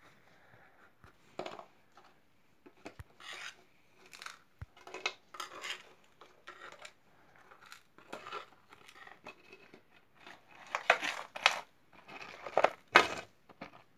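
Pieces of khoya barfi being picked up and broken apart by hand in a large metal bowl: irregular scrapes, taps and clinks against the metal, loudest near the end.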